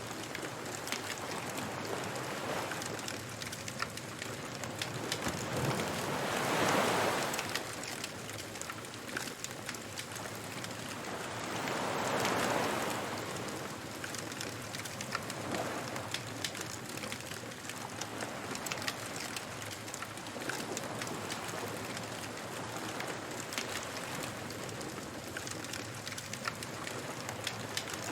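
Beach bonfire ambience: a fire crackling with constant small pops over the steady wash of surf, with waves swelling up and falling away twice, about a quarter and nearly half way through.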